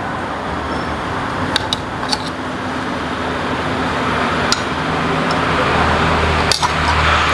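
Steady rushing noise from an aluminium steamer pot heating over a portable gas stove, growing gradually louder. A few light clicks come from a metal spoon scraping sauce out of a ceramic bowl.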